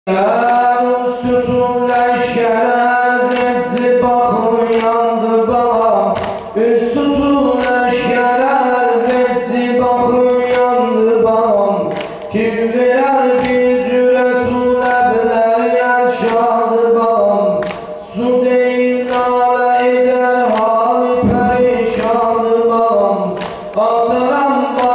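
Male reciter singing a mersiyye, a mourning elegy for Imam Husayn, unaccompanied, in long drawn-out ornamented phrases that break for a breath about every six seconds.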